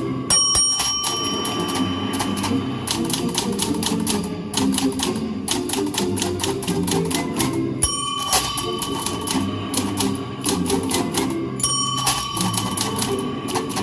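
Manual typewriter played as a percussion instrument: rapid, rhythmic key clatter over a pitched musical accompaniment, with the typewriter's carriage bell dinging three times: near the start, about eight seconds in, and again near twelve seconds.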